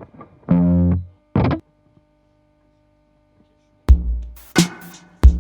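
Distorted blues-rock music: two short sounds in the first second and a half, a pause of about two seconds, then the band comes in about four seconds in with hard drum hits every half second or so over a deep low end.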